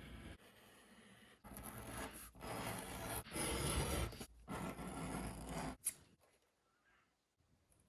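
Four rubbing, scraping strokes of a hand tool on a workpiece, each about a second long, with a sharp click a little before six seconds in.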